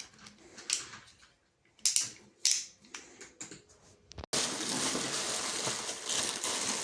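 A few separate sharp clicks and knocks from handling a plastic ratchet screwdriver. About four seconds in, this changes abruptly to steady crinkling and rustling of plastic packaging.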